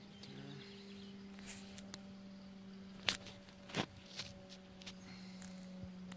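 A few footsteps on dry grass, mostly in the second half, over a faint steady low hum.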